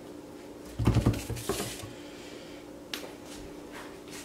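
Soft handling knocks and rustling about a second in, then a single sharp click near three seconds, over a faint steady hum.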